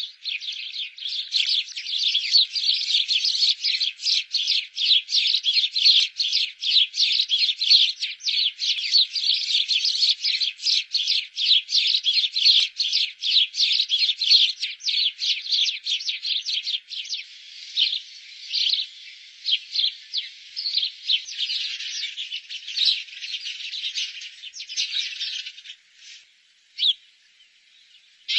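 House sparrows chirping in a rapid, dense run of short chirps, which thins out in the last few seconds to a few separate chirps.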